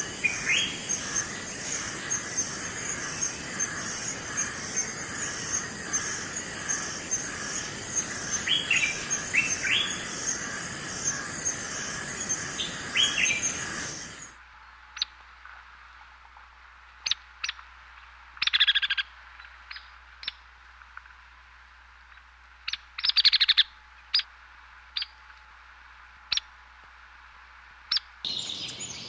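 Forest birds calling. For about the first half it is a dense chorus with a steady, high, evenly pulsing trill under scattered rising chirps. About halfway the sound cuts to a much quieter stretch with separate short chirps a second or two apart.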